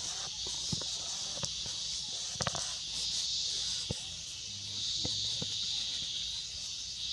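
Steady high, even buzz of an insect chorus, with a scatter of soft clicks and ticks.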